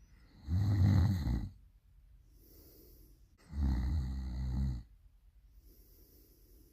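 A person snoring loudly: two rattling snores about three seconds apart, each followed by a softer breath out.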